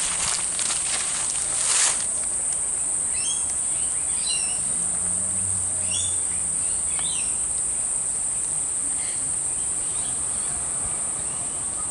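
Steady high-pitched insect drone with a few short bird chirps a few seconds in. Footsteps rustling through dry leaf litter in the first two seconds.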